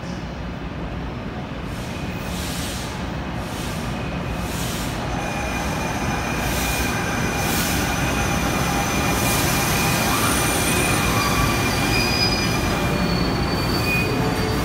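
NJ Transit GE Arrow III electric multiple-unit train pulling into the station, growing louder as its cars pass close. Its wheels rumble on the rails with a run of regular clicks over the joints, and high steady wheel squeals set in about a third of the way through.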